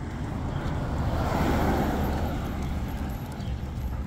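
A car passing on the street: its road noise swells, peaks about a second and a half in, then fades away.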